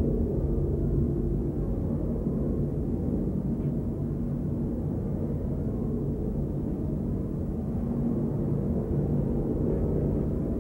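A steady, low rumbling drone with a few held low tones that shift slowly, from the soundtrack of an experimental video.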